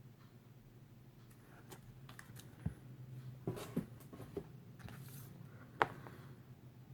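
Comic books being handled: faint rustling with a few light taps, and one sharper tap a little before the end, over a steady low hum.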